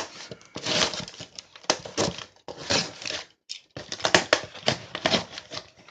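A cardboard shipping box being handled and opened: irregular scraping and crinkling with sharp clicks and knocks, busier in the second half.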